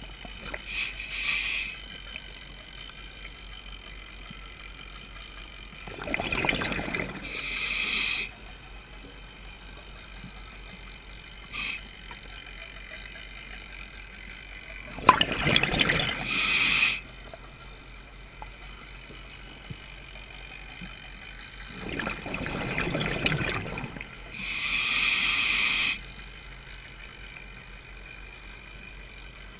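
Scuba diver breathing through a regulator underwater. Three loud breath cycles, each a rush of exhaled bubbles followed by the hiss of the regulator, with a short hiss about a second in and a steady low underwater background between breaths.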